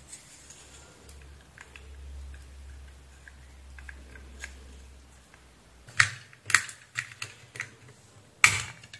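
Sharp clicks and taps of a small plastic connector and wires being handled and set down on a workbench: faint at first, then about six louder clicks in quick succession over the last three seconds. A low hum sounds under the first half and stops about five and a half seconds in.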